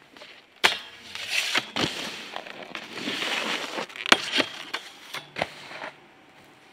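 Snowboard riding a metal stair handrail: several sharp clacks and knocks, with a scraping slide of the board along the rail between them.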